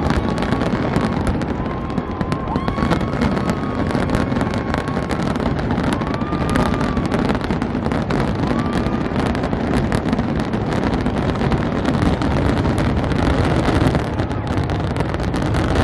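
Aerial fireworks in a dense, continuous barrage: rapid crackling and bursting shells running together without a break, with a few faint whistles in the first half.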